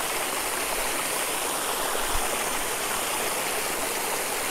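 Steady rush of running water, like a stream, with a faint low thump about two seconds in.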